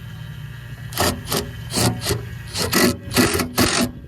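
Hand scraping, about seven quick strokes about two a second, as an old dry-rotted gasket is scraped off, over a steady low hum.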